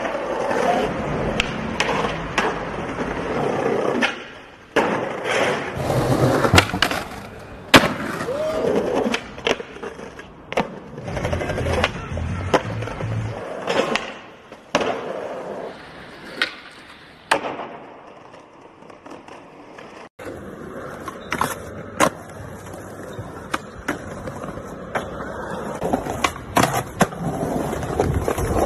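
Skateboard wheels rolling on concrete, broken by many sharp clacks of the board popping off its tail and slapping down on landings.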